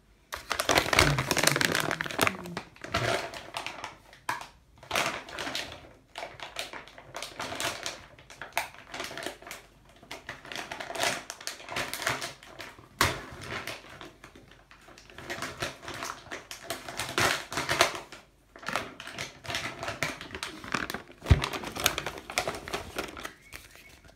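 Plastic toy packaging crinkling and rustling as it is handled and opened, in irregular bursts with many small clicks and taps.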